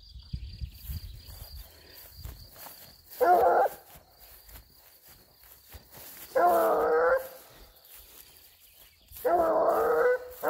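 Hunting dog on a long leash baying on a wild boar's trail: three drawn-out bays a few seconds apart, each longer than the last, with a fourth starting right at the end. Footsteps swish through grass in the first couple of seconds.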